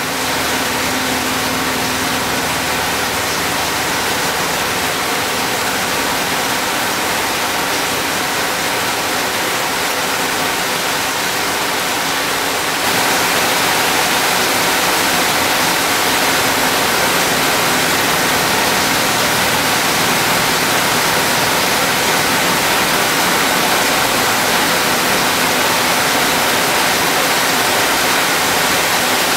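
KFG 320 CNC bevel gear milling machine cutting a straight bevel gear with its two interlocking disc cutter heads under a flood of cutting oil: a steady rushing hiss of oil spray and cutting. It gets a little louder about halfway through.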